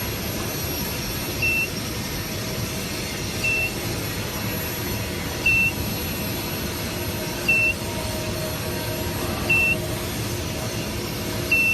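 An electronic beeper sounding a short high beep about every two seconds, evenly spaced, over a steady mechanical hum and noise.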